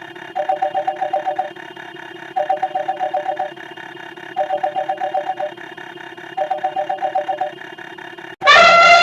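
Telephone ring sound effect: four trilling two-tone rings, each about a second long and two seconds apart. Near the end an elephant trumpet sound effect cuts in loudly, falling in pitch.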